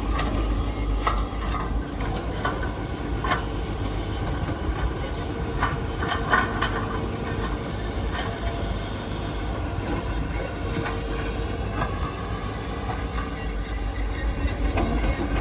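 A heavy vehicle's engine running with a steady low rumble, with scattered clanks and clicks over it.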